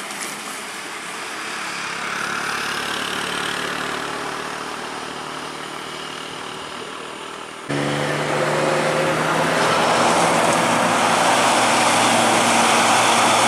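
Heavy truck diesel engines working uphill. A flatbed tow truck's engine fades as it pulls away up the grade. After an abrupt cut about 8 seconds in, a tanker truck's engine takes over, louder and steady, with a deeper hum as it climbs toward the camera.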